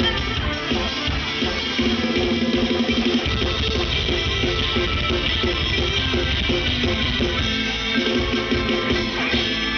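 Live mor lam band playing an instrumental passage, with electric guitar and drum kit keeping a steady beat.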